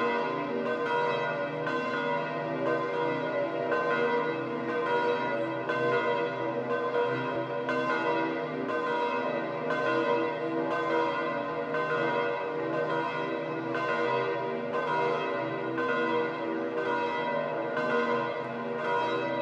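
The bells of St. Peter's Basilica pealing: many bells ringing over one another, with a fresh strike roughly every 0.7 s, so the sound never lets up.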